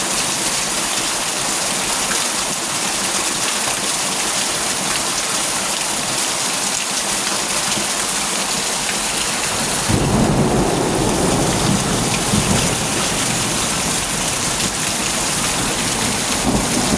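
Steady heavy rain falling, with a low rumble of thunder that starts suddenly about ten seconds in and comes back near the end.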